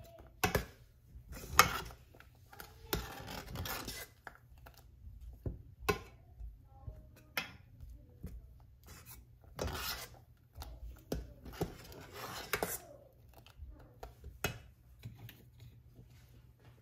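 Stainless steel spoon stirring milk in a stainless steel pot, scraping and clinking against the pot's sides and bottom in irregular strokes. The mixture is being stirred steadily to keep it from forming lumps.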